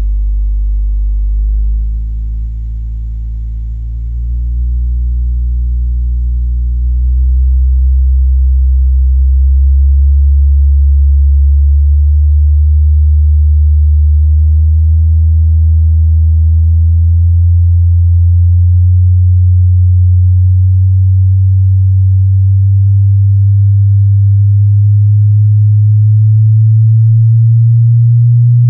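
Bass sweep test tone played loud through a JBL loudspeaker: one deep tone slowly rising in pitch, with fainter overtones above it.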